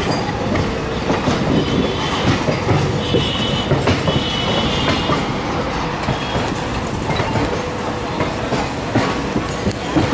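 Passenger train coaches' wheels running over rail joints and points, a steady clickety-clack with sharp clicks. Brief high wheel squeals a few seconds in.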